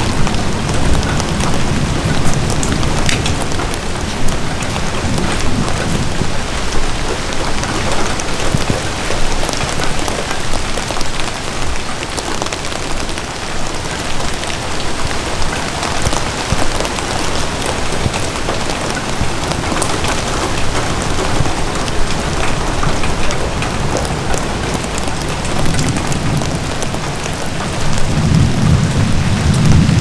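Steady rain falling on an umbrella, with many sharp drop ticks over a constant hiss. A low thunder rumble sits under it for the first few seconds and swells again near the end.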